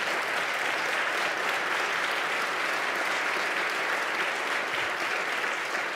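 Sustained applause from a large audience, many hands clapping at a steady level.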